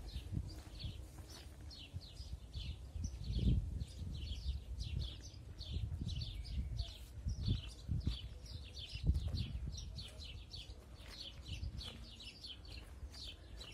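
Small birds chirping over and over, short falling chirps about four a second, over a low rumble with a few dull thumps.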